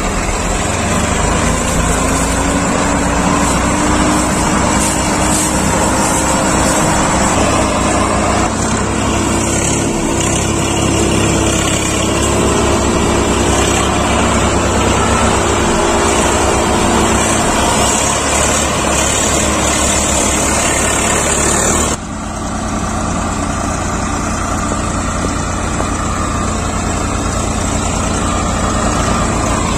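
Diesel farm tractor engines running steadily under load while hauling a heavily loaded sugarcane trolley, the engine note rising slightly over the first few seconds. The sound cuts abruptly about 22 seconds in and carries on with a steady engine note.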